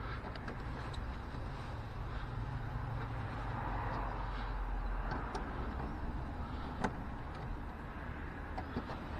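Steady low rumble with scattered light clicks of parts and tools being handled during refitting of a car's wiper mechanism; one sharper click about seven seconds in.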